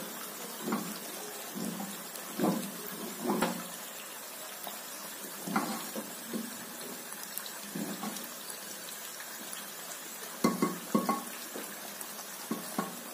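Thick, creamy moong dal being stirred with a wooden spoon in a pressure cooker: irregular wet slaps and glops about once a second, with a quick cluster near the end. Under it a faint, steady sizzle of papdi deep-frying in oil.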